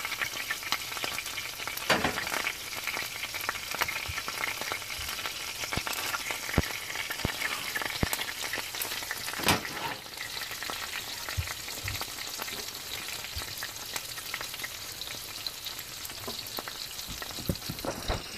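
Eggs and cheese frying in a skillet, just flipped: a steady crackling sizzle, with a few sharp clicks, the loudest about two seconds and nine seconds in.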